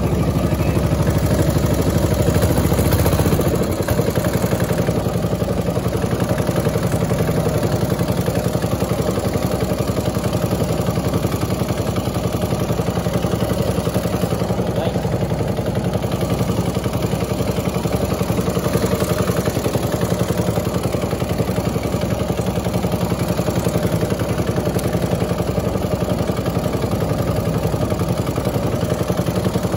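Small boat engine running steadily, pushing the boat at trolling speed; its deep low end eases off about three and a half seconds in.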